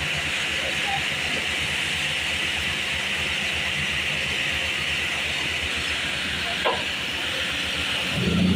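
Steady hiss over a low engine hum from road-paving machinery running at the work site; the hum grows louder near the end.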